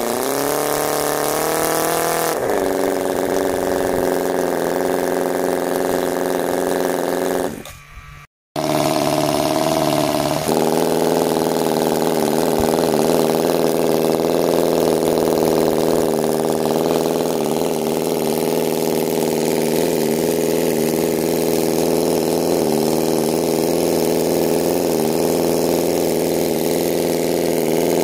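Cison inline four-cylinder four-stroke water-cooled model gasoline engine running. It revs up near the start and settles back, then dies away about eight seconds in. After a brief gap it runs again, faster for a couple of seconds before settling into a steady idle.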